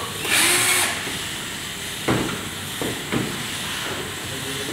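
Cordless drill-driver spins briefly about half a second in, backing out the pistol grip screw of an airsoft rifle. A few sharp plastic clicks and knocks follow as the grip is worked loose by hand, over a steady background hiss.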